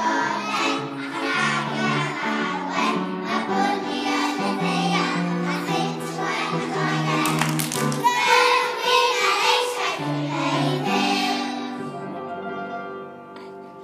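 A group of young children singing a song together; the singing fades away near the end.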